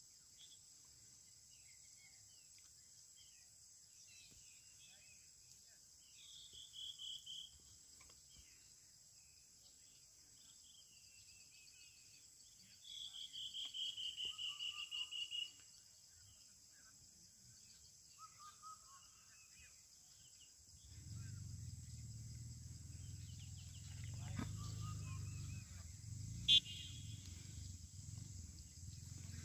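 Steady, faint high-pitched insect chorus of crickets in an open landscape. Twice, a rapid run of calls falling slightly in pitch rises above it. About two-thirds of the way in, a low rumble begins, and a single sharp click comes near the end.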